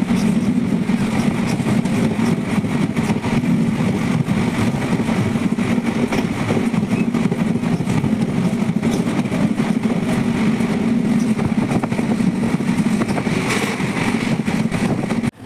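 Steady rumble and rattle of a moving passenger train, the coach's wheels running on the track, heard from inside the coach. It cuts off abruptly near the end.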